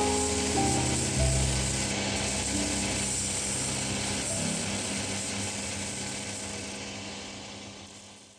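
Sanding belt of a shoe finishing machine grinding the edge of a Vibram rubber boot sole, a steady grinding hiss, with soft music underneath; it all fades out near the end.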